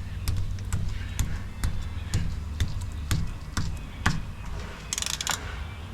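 Background music with a steady drum beat of about two strikes a second. About five seconds in there is a short, quick clicking rattle.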